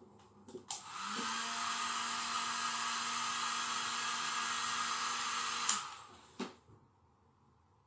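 Handheld hair dryer switched on, blowing with a steady rush of air and a motor hum for about five seconds, then switched off abruptly.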